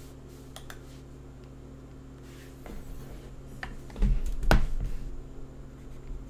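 Pen stylus tapping and scratching on a tablet while handwriting, in a few sharp clicks, with a cluster of heavier knocks about four seconds in. A steady low electrical hum runs underneath.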